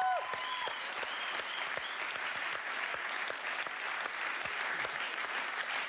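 Studio audience applauding steadily, with a few calls and whoops from the crowd in the first two seconds.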